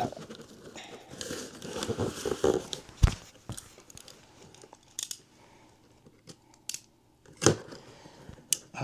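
Cardboard box of golf irons being opened by hand: tape and packaging tearing and crinkling, with one sharp knock about three seconds in and a few lighter knocks and clicks after it.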